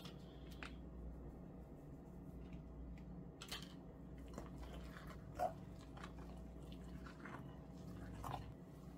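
Hands mixing and kneading a soft flour, egg and yogurt dough in a bowl: faint squishing and soft taps, with one louder knock about halfway through.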